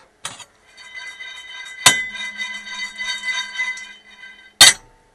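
Stainless steel frying pan of pine nuts being shaken on a gas hob's metal grate: the nuts rattle and the pan scrapes with a ringing tone. Two sharp metal knocks come about two seconds in and near the end.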